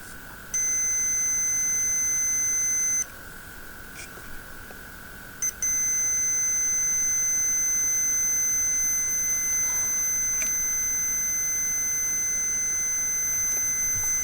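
Steady high-pitched electronic tone, like a held beep. It comes on about half a second in, stops after about two and a half seconds, then returns with a short blip and holds continuously, over a faint constant hum.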